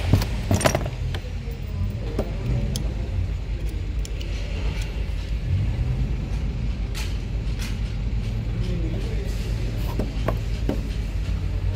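Light metallic clicks and taps of an adjustable wrench and brass hose fittings being handled while hoses are connected to an oxy-acetylene torch handle, over a steady low rumble. A few sharper clicks in the first second are the loudest sounds.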